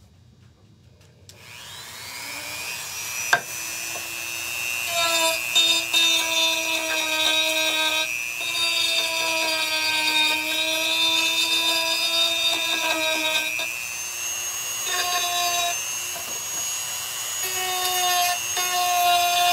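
Dremel rotary tool with a small sanding tip spinning up about a second in to a steady high whine, then sanding old, built-up glue off the edge of a wooden drawer. Its pitch and loudness waver as the bit bears on the wood.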